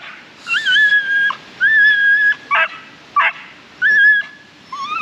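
Playground swing squeaking as it swings back and forth: a long high squeak, then a short sliding one, repeating about every second and a half.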